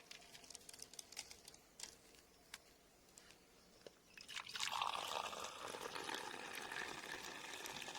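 Food frying in hot ghee in a pan: scattered crackles and pops, then about four seconds in a louder, steady sizzle sets in.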